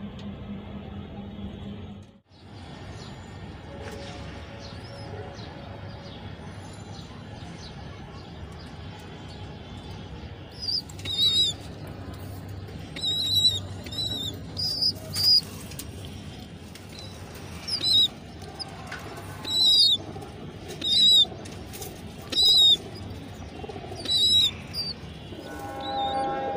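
Pigeon squabs begging with short, shrill squeaks, repeated every second or so from about ten seconds in, over a steady background hiss. Wings flutter as a squab begs.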